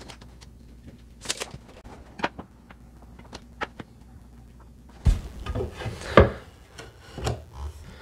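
Scattered light clicks and taps as a tape measure and tools are handled, then, about five seconds in, a louder run of wooden knocks and rubbing as an engineered hickory stair nosing is set and pushed into place on the tread.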